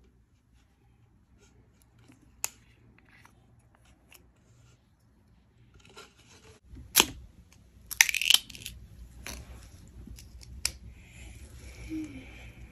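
Small plastic eye cream jar being opened by hand: scattered sharp plastic clicks and taps as the screw lid is handled, and a brief crinkling tear about eight seconds in as the plastic inner seal is pulled off.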